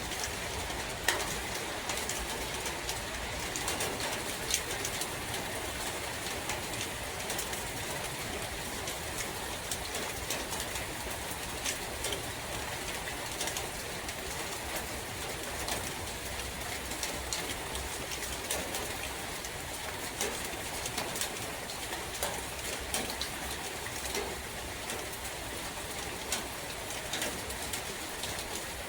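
Steady rain falling in a forest, with scattered sharp drips and patters, and a bird calling repeatedly over it.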